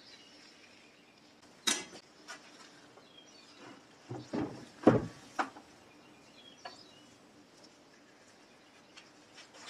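Scattered metal clunks and knocks as a Pfaff 1245 industrial sewing machine head is handled and turned over onto its back on a wooden workbench, the loudest a heavy knock a little before halfway, with a few faint bird chirps in the background.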